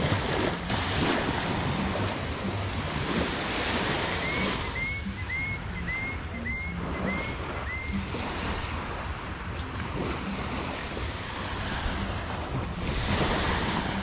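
Small waves washing onto a sandy beach, with wind buffeting the microphone and a swell of surf near the end. Midway, a run of about seven short high chirps, roughly two a second.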